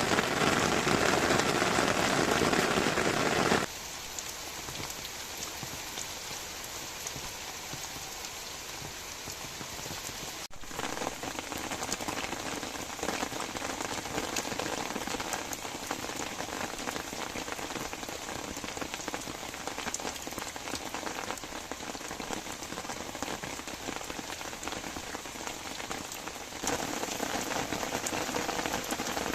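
Heavy rain falling, a steady hiss of drops hitting surfaces. The level drops suddenly about four seconds in and rises again suddenly near the end.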